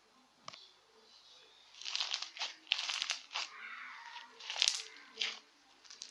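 Slime mixed with styrofoam beads being squeezed and worked by hand, crackling and crunching in a run of bursts from about two seconds in.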